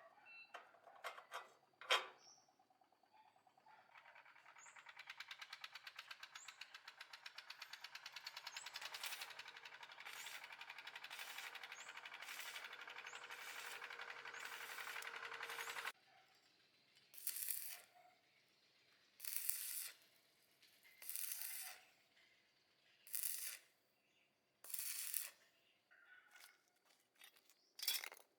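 A rapid mechanical rattle runs for about twelve seconds and cuts off suddenly, followed by about six short hissing strokes roughly two seconds apart. A few clicks come before it.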